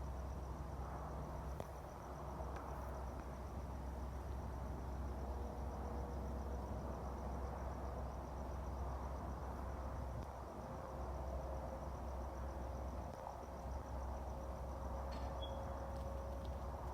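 Crickets trilling steadily, a thin high pulsing note, over a steady low hum, with a faint steady tone coming in about five seconds in and a couple of faint clicks near the end.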